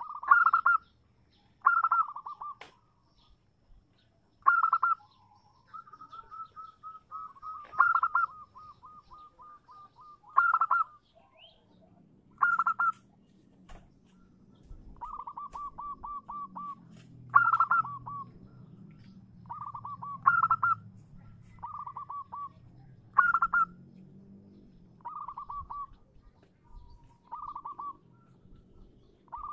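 Female zebra dove calling: short, sharp cooing notes repeated every two to three seconds, several of them running on into a fast stuttering trill of soft coos. This is the call a hen uses to draw a male to answer.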